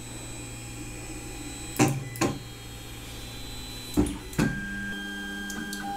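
Creality Ender-3 Pro's stepper motors whining as the printer auto-homes its axes, with two pairs of sharp clicks as the print head and then the bed reach their limit switches. A new, higher steady whine starts near the end, the sign of the next axis being driven home.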